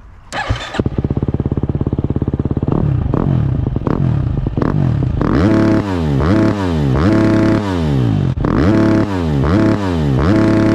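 GasGas EX 250F dirt bike's single-cylinder four-stroke engine starts up about half a second in and idles briefly. It is then revved hard over and over, each rev bouncing off the rev limiter before dropping back, less than a second apart.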